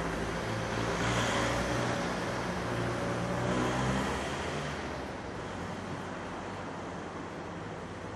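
Street ambience with a car passing: a low engine hum and road noise swell over the first few seconds and fade away after about five seconds.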